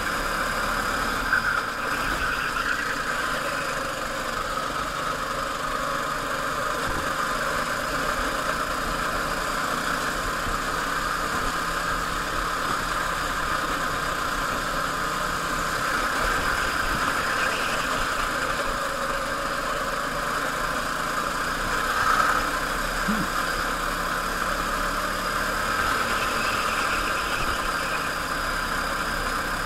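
Go-kart engine running steadily at racing speed, heard from the kart itself, its pitch rising and falling gently with the throttle through the corners.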